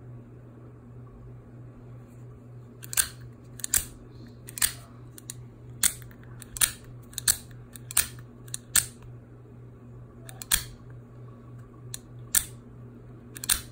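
Benchmade Mini-Infidel out-the-front automatic knife firing its blade out and snapping it back in again and again: about a dozen sharp metallic clicks at uneven intervals, beginning about three seconds in, over a faint steady hum. The knife is deploying and retracting fully after its repair.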